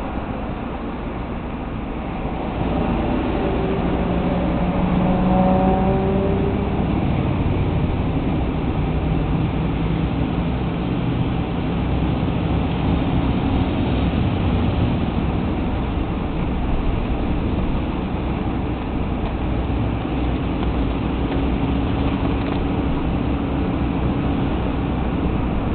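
Car engine running with steady road noise, heard from a moving car; the engine pitch rises a little between about the third and seventh second as it picks up speed.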